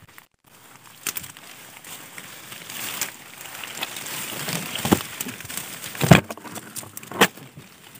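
Dense leafy undergrowth rustling and crackling as a hand pushes through it close to the microphone. The rustling builds through the middle, with several sharp clicks among it, the loudest about six seconds in.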